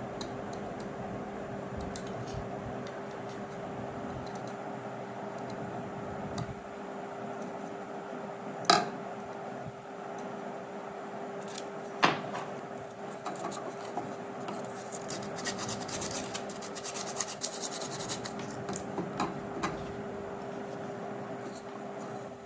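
Hand work with tools and plastic pipe: two sharp knocks, one about a third of the way in and a louder one about halfway, then several seconds of light scratching and ticking, over a steady faint hum.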